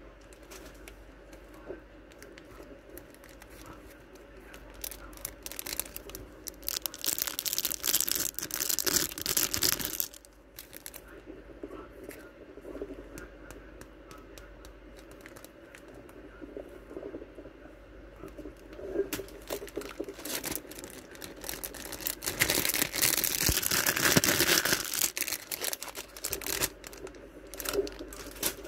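Clear plastic packaging crinkling and rustling as it is handled, with scattered small clicks; it gets loud twice, each time for several seconds.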